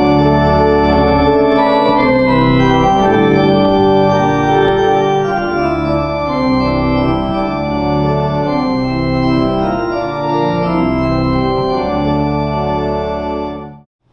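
Organ playing a series of full, held chords that change every second or so, cutting off suddenly just before the end.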